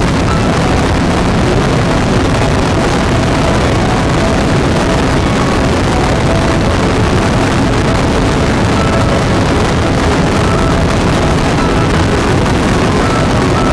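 Bantam ultralight aircraft's engine running steadily in level flight, heard from the open cockpit together with loud wind rush on the microphone.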